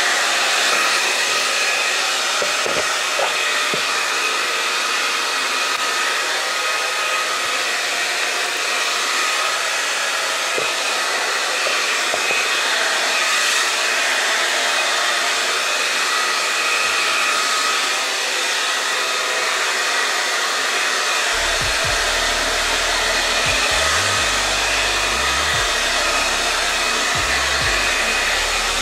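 Handheld hair dryer running steadily, blowing air onto a wet puppy's coat: a constant airy hiss with a faint steady whine.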